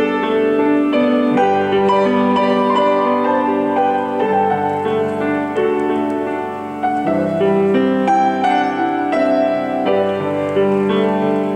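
Solo piano playing a gentle instrumental interlude, chords and melody notes ringing in a reverberant church.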